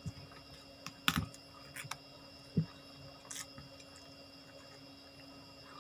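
Close-up eating sounds: a person chewing, with a few scattered wet mouth clicks and smacks, the loudest about a second in.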